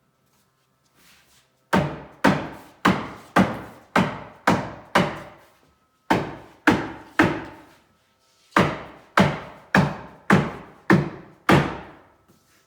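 Hammer blows on a wooden cabinet panel, about two a second in three runs: seven strikes, then three, then seven. Each blow rings briefly before dying away.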